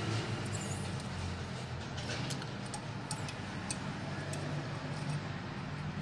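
Refrigerant gas being let out of a fridge compressor's opened brass service valve: a faint steady hiss over a low steady hum, with small scattered clicks as the valve is worked, releasing the charge before a clogged capillary and filter are replaced.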